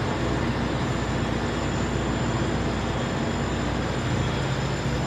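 Steady hum and rush of a supply ship's running machinery, with a constant low drone and a faint high whine.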